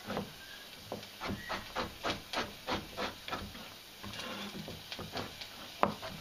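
Chef's knife chopping parsnip on a plastic cutting board: a quick run of chops, about four a second, then a softer stretch of pieces sliding and rubbing on the board, and one sharp chop near the end.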